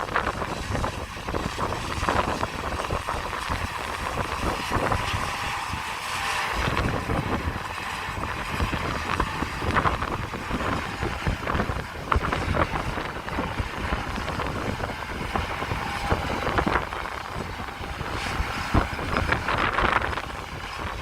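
John Deere combines running as they harvest soybeans: a steady machinery drone with a faint whine, overlaid by wind gusting on the microphone.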